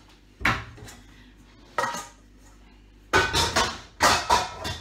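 Dishes and cutlery clattering as crockery is handled and set down: a knock about half a second in, another near two seconds, then a quick run of louder clinks and knocks in the last second and a half.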